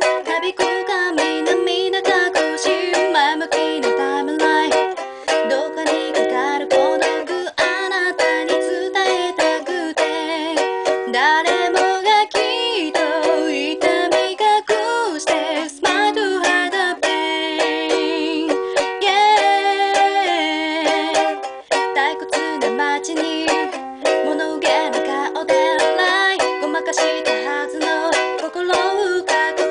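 Ukulele strummed in steady chords, with a voice singing along.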